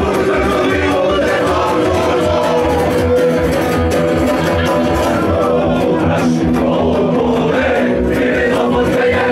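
Live rock band playing loud, with electric guitar and drums, and several male voices singing together into one microphone.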